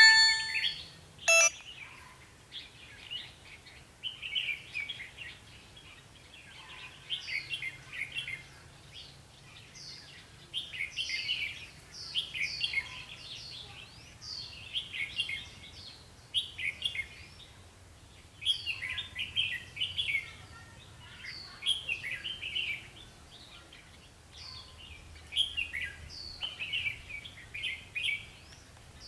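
Red-whiskered bulbuls singing: short, chirpy phrases repeated in bouts with brief pauses between them. A single sharp click sounds about a second in.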